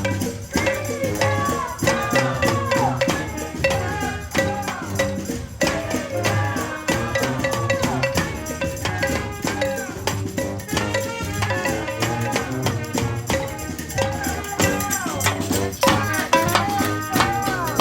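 Music with steady drumming and rattling shakers, and many pitched sounds bending up and down over it.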